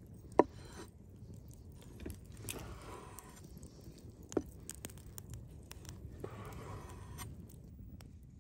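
Knife slicing raw chicken breast on a wooden cutting board: the blade knocks sharply on the board about half a second in and again about four seconds in, with softer scraping strokes between.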